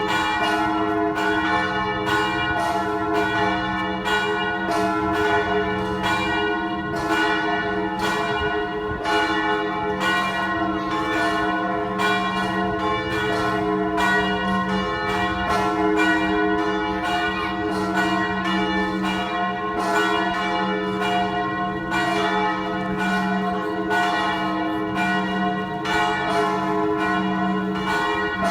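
Western-style church bells ringing continuously. Several bells are struck in quick succession, their tones overlapping and ringing on.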